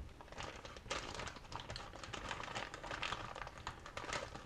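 Clear plastic bag crinkling and rustling as it is handled and pulled open: a dense run of irregular small crackles.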